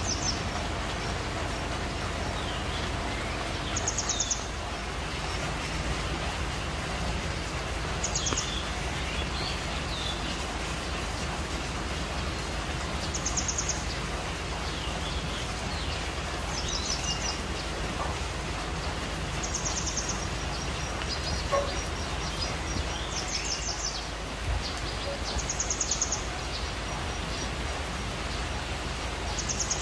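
Outdoor ambience: a short, high trilled chirp repeating every three to four seconds, with fainter bird calls between, over a steady low background noise.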